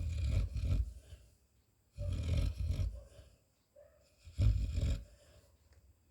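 Sleeping Labrador retriever snoring: three low snores, each about a second long and about two seconds apart. A faint thin tone can be heard between them.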